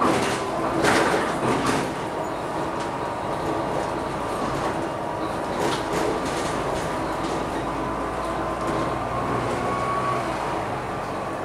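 Volvo B9TL double-decker bus on the move, heard inside the cabin: its six-cylinder diesel engine and road noise run steadily under a thin whine. A few rattles and knocks come in the first two seconds and again about six seconds in.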